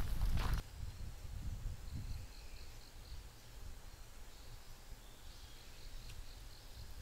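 Outdoor ambience: a few loud footsteps or knocks in the first half second, then a steady low rumble with faint high chirping calls, like small birds or insects.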